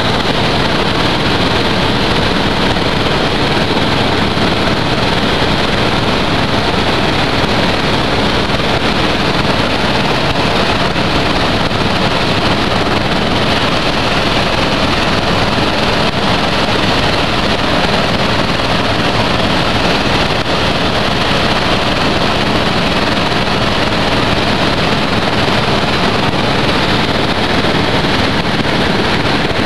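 Helicopter in flight heard from on board: loud, steady engine and rotor noise mixed with rushing air.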